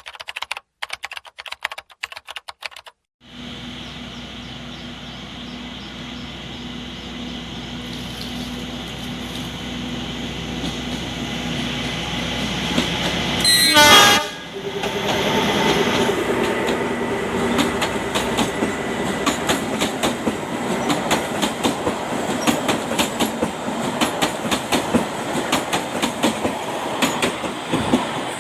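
Narrow-gauge train approaching, its locomotive engine running steadily and growing louder from about three seconds in. The horn sounds briefly about halfway through, then the wheels clatter over the rail joints as the train passes.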